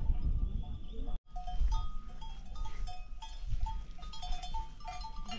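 Bells on grazing livestock clinking irregularly in short, repeated rings, over a low rumble. The sound cuts out briefly about a second in.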